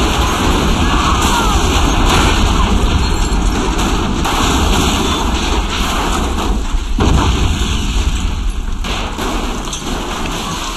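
Loud, continuous explosion rumble with dense crackling, like debris and fire after a blast, as battle sound effects. It eases off a little near the end.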